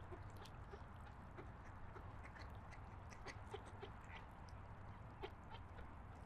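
Faint lakeshore ambience: scattered short duck calls and bird chirps over a steady low rumble.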